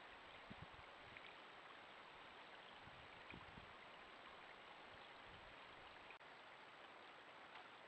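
Near silence: the trail camera's steady hiss with a thin, faint high whine, and a few soft low thumps.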